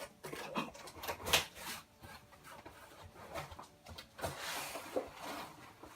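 A box being opened by hand: a run of short knocks and scrapes as the flaps and packaging are handled, then a longer rustle about four seconds in.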